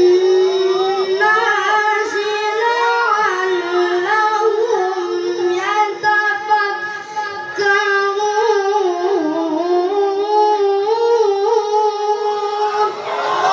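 Melodic Qur'an recitation by one high-pitched voice, held notes and ornamented, winding melismatic turns, with a short breath break about halfway through.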